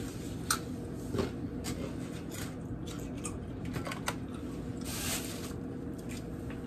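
Scattered small crunches and clicks of someone biting and chewing a jalapeño stuffed with cream cheese and Takis chips, over a low steady hum, with a brief rustle about five seconds in.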